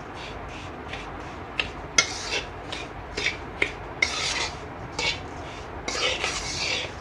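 A metal spoon is scraping and stirring a dry, crumbly roasted-besan laddu mixture around a steel kadai. Each stroke gives a rasping scrape, about one or two a second, with a few sharp clicks where the spoon knocks the pan.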